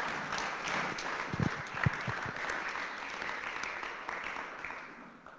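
Audience applauding, tapering off near the end, with a few low thumps about one and a half to two seconds in.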